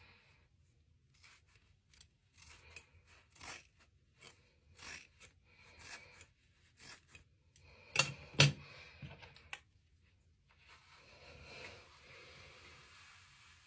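Haircutting scissors snipping through strands of hair, a dozen or so short crisp cuts in quick succession. About eight seconds in come two loud sharp clicks close together. A brush then sweeps through the hair with a steady rushing noise until the end.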